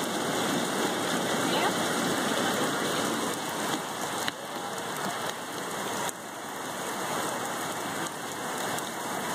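Steady rain falling on surfaces, an even hiss with a few faint ticks.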